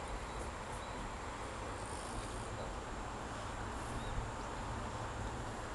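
Steady outdoor background hiss with faint, high insect chirping, likely crickets, a few short calls about two and four seconds in.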